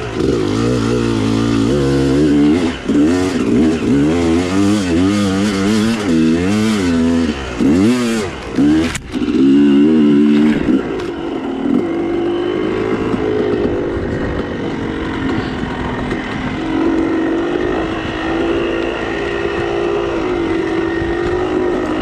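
Dirt bike engine revving up and down repeatedly for about the first half, then running at a steadier, slowly wavering pitch.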